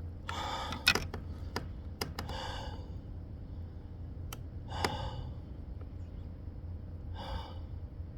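A man breathing out in heavy, breathy sighs and gasps, four of them about two seconds apart: dismay at having just lost a big bass. A few light clicks and knocks from handled gear sound in the first half, over a steady low rumble.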